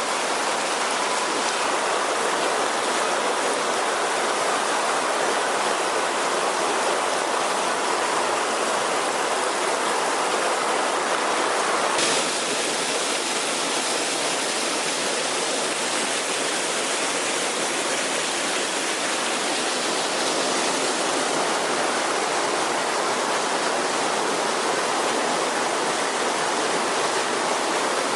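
Heavy downpour with rainwater rushing, a steady, loud hiss and rush of water.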